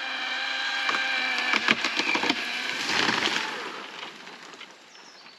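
Chainsaw engine running steadily while a large fig tree's trunk cracks and splinters as it gives way, then the tree comes down with a big crunch about three seconds in, the crash dying away near the end.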